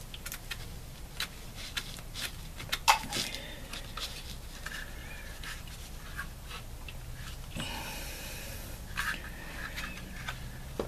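Scattered light clicks, taps and scrapes of a Winchester Wildcat .22 LR semi-automatic rifle being handled as its trigger group and lower receiver are worked out during field stripping, with a sharper knock about three seconds in.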